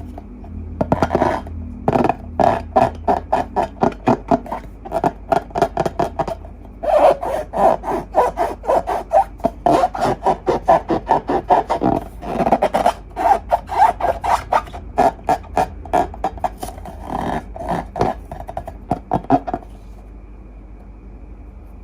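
Slime being worked by hand or stirred: a fast, uneven run of short clicks and squishes that stops about 19 seconds in.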